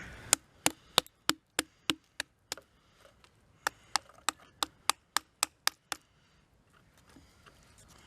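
A knife chopping into a dry, hard wooden stick. Sharp, evenly spaced strikes come about three a second, in two runs of about eight with a short pause between them.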